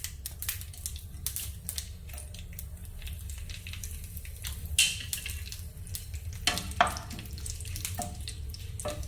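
Dried red chillies and mustard seeds frying in hot coconut oil in a pan, sizzling with scattered sharp crackles and pops.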